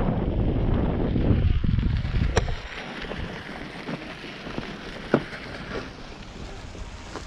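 Wind buffeting the camera's microphone: a heavy low rumble for the first two seconds or so, then easing to a light hiss, with two sharp clicks along the way.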